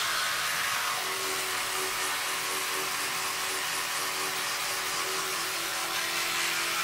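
Oral-B Genius 9000 electric toothbrush buzzing steadily while brushing teeth, its hum dropping slightly in pitch near the end.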